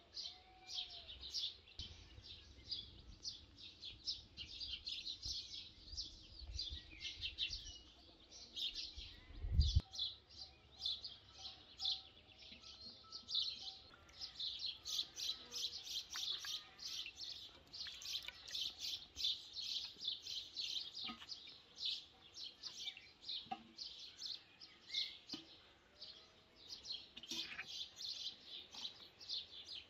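Small birds chirping rapidly and continuously. A low rumble, most likely wind on the microphone, fills the first third and ends with a single thump about ten seconds in. A few faint knocks follow later.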